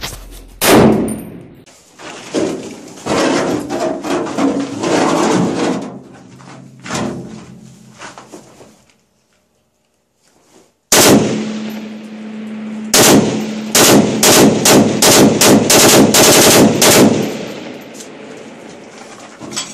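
Close-range rifle fire echoing in a concrete room: a single loud shot about a second in, then after a break a run of about a dozen quick single shots from an AK-pattern rifle, two or three a second.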